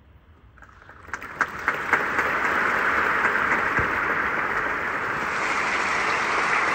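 Audience applause breaking out after a quiet ending: a few scattered claps about a second in, swelling within another second into full, steady applause.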